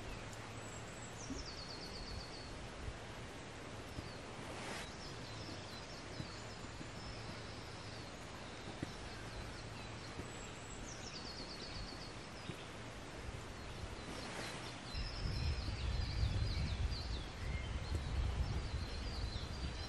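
Woodland birdsong: a songbird twice sings a quick, high, descending trilled phrase, with other birds calling faintly in between. From about fifteen seconds in, a low rumble joins.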